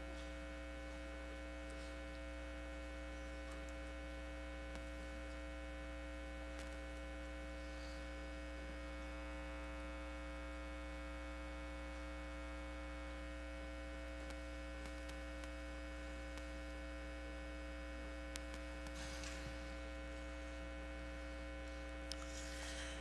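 Steady electrical mains hum with many evenly spaced overtones, and a couple of faint clicks near the end.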